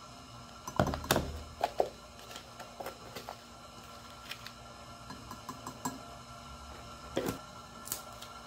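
Small plastic scoop scraping and clicking in a plastic tub of creatine powder, with a few sharp knocks as the scoop and tub are handled and set down on a stone countertop; the loudest knock comes about a second in.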